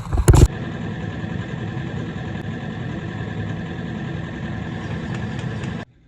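A few loud knocks, then an engine idling steadily, which cuts off suddenly near the end.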